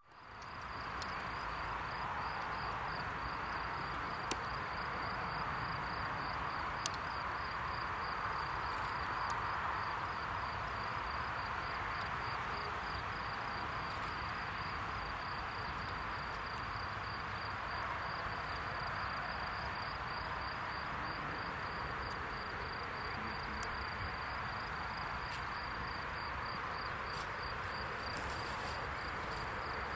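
Crickets in the grass chirping in a continuous high, rapidly pulsing trill over a faint steady rushing background.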